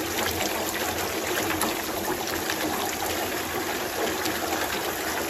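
Spring water running steadily out of the opened water-wheel pump (bomba rodão), carrying a lot of silt from the spring.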